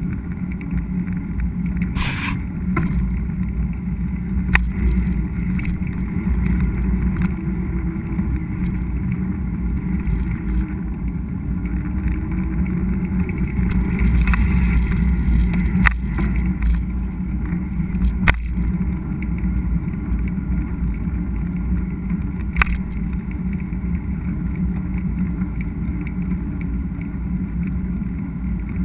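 Mountain bike riding heard from an action camera on the bike: a steady low rumble of tyres and wind, with a few sharp clicks and knocks of the bike rattling over the trail.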